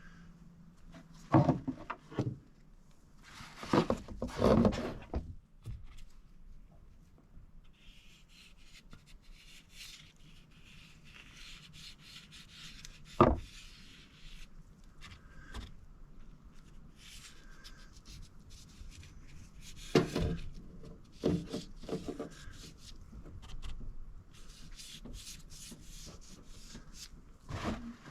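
Hands-on work with tools and parts: scattered knocks, clunks and scraping. The louder clunks come in a few clusters, near the start, once midway and again later.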